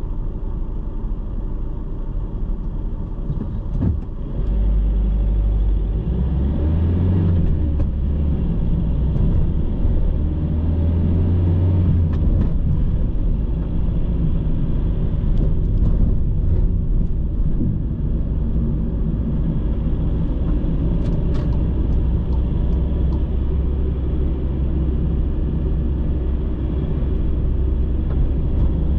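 A car's engine and road noise as a low steady rumble. The car idles, pulls away about four seconds in, and the engine note shifts as it gathers speed, then settles into a steady driving drone.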